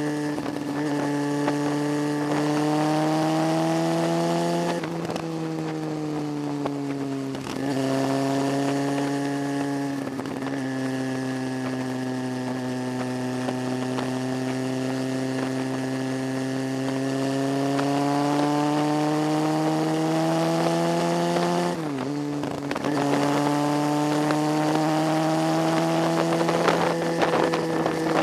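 Motorcycle engine running under way as heard from on the bike. Its pitch climbs and then dips several times as the rider changes gear and eases off around the bends.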